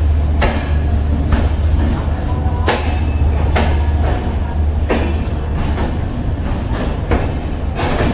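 Humsafar Express passenger coaches rolling slowly into a station: wheels clacking over rail joints, roughly once a second, over a steady low rumble.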